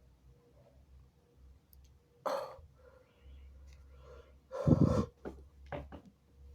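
A held-back sneeze: a sharp breath in about two seconds in, then a stifled sneeze a little past the middle, the loudest sound, followed by a few short quick breaths.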